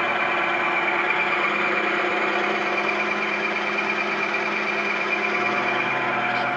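Milling machine running steadily with its cutter taking a light finish pass under power table feed: a steady hum with several held tones and a prominent high tone.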